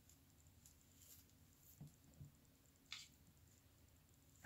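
Near silence: room tone with two faint soft taps and one short click, the quiet handling noise of working a comb through a wig's bangs.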